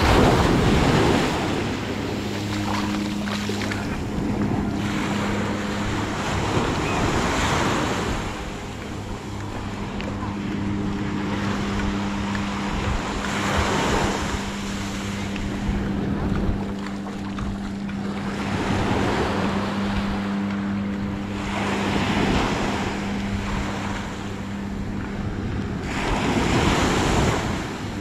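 Small waves breaking and washing up the sand at the water's edge, swelling into a surge every few seconds, with wind on the microphone. A steady low hum runs underneath.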